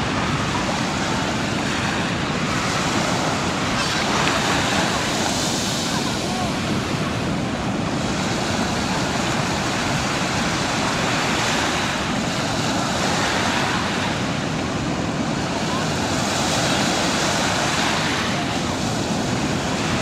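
Small sea waves breaking and washing up a sandy beach: a steady wash of surf that swells a little around five and seventeen seconds in.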